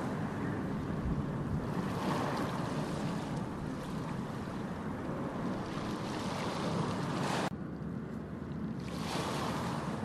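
Ocean waves breaking and washing on a beach: a steady surf noise that swells and eases every few seconds. The hiss drops abruptly about seven and a half seconds in.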